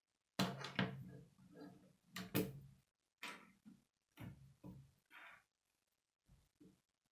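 Plastic K'nex model knocking and clattering against a wooden tabletop as it is set down, a string of sharp knocks over the first few seconds, followed by lighter clicks of K'nex pieces being handled.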